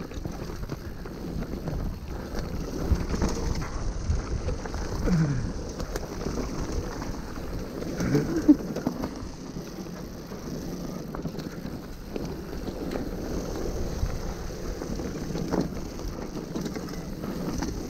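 Mountain bike ridden downhill on a rough dirt trail: wind buffeting the helmet-camera microphone over the rumble of tyres on dirt and the bike's rattles and clicks, with a sharp knock about eight and a half seconds in.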